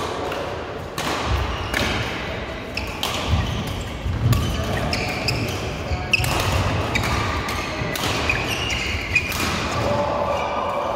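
Badminton rally: sharp racket hits on the shuttlecock at irregular intervals, some from neighbouring courts, with short shoe squeaks on the court mats and players' voices, all echoing in a large sports hall.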